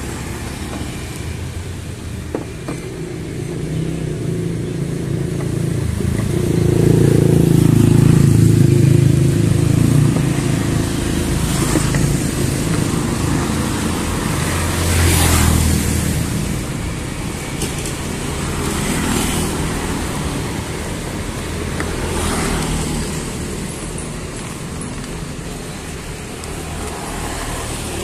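Road traffic going by close at hand: a steady low engine rumble that swells as a vehicle passes about seven to ten seconds in, with another vehicle going by around fifteen seconds and smaller passes after that.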